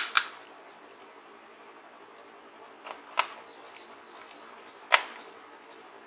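Sharp clicks and taps of small screws and a screwdriver against a laptop's palmrest as screws are fastened back in: two clicks at the start, a couple more about three seconds in, and the loudest about five seconds in.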